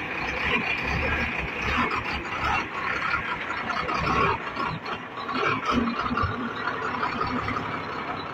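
Heavily loaded Sinotruk HOWO 371 truck's diesel engine running as the truck labours through mud on a rough dirt road, an uneven low rumble mixed with rough noise.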